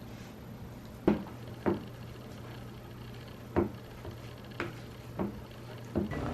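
Six short, sharp taps or knocks at uneven intervals over a steady low hum.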